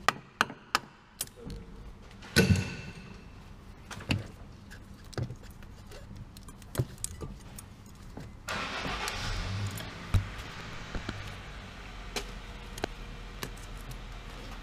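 Metal tools and car parts clinking and knocking during work on a front CV joint, with one loud ringing clank about two and a half seconds in and a rustling hiss for about two seconds from eight and a half seconds in.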